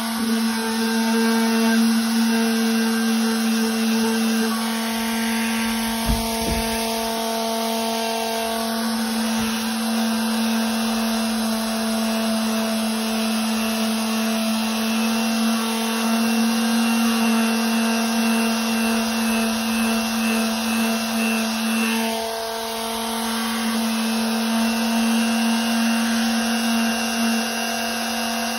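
Electric random orbital sander with 60-grit paper running steadily with a constant hum, sanding the cut edge of a rubber pool table cushion to smooth out knife marks. A single click about six seconds in, and the sound dips briefly about three-quarters of the way through.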